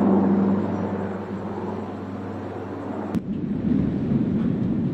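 Engine noise on an airport apron: a steady hum with a held low tone, then, after an abrupt cut about three seconds in, a rougher rumble.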